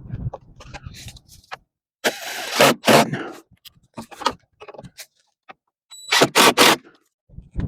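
Several short bursts of metal clattering and scraping: one pair a couple of seconds in and three quick ones near the end.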